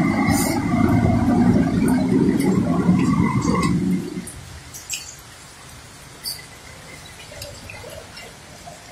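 A car driving through floodwater, its wheels churning and splashing loudly until the sound drops away about four seconds in. A much quieter steady wash with scattered light ticks follows.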